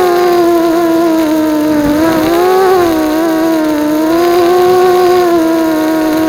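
Small 210-size FPV racing quadcopter's motors and propellers buzzing loudly, the pitch rising and falling a little with the throttle.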